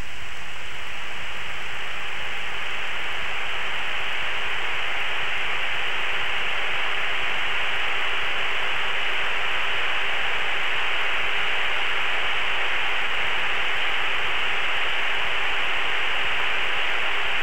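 Steady hiss of a cockpit radio and intercom audio channel between transmissions, with a faint steady hum underneath.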